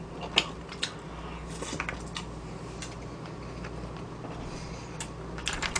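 Soft eating sounds: a plastic spoon clicking and scraping in a plastic takeout tray of rice, a handful of short scattered clicks over a steady low hum.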